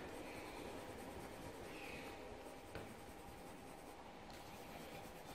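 Faint scratching of a colored pencil being rubbed back and forth on paper while colouring, with one light tick near the middle.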